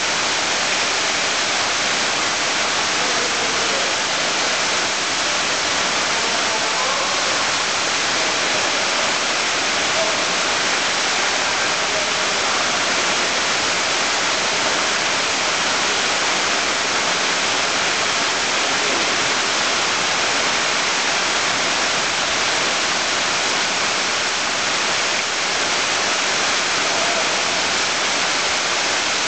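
Steady splashing rush of water from spa water cannons: curved spouts pouring streams onto the pool surface, where the water churns and foams.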